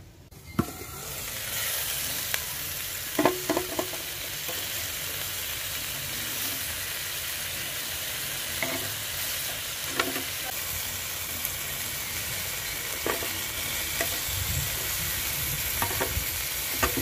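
Marinated chicken pieces sizzling on a hot double-sided grill pan. The steady hiss comes up about a second in, with a few light clicks of metal tongs against the pan as the pieces are turned.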